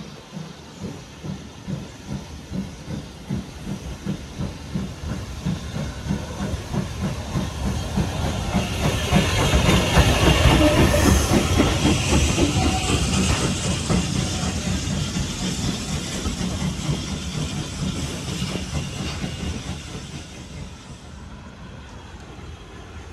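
Steam locomotive working past with a train: regular exhaust beats, a little under two a second, with steam hiss. It grows louder to a peak about ten seconds in, then fades away as it moves off.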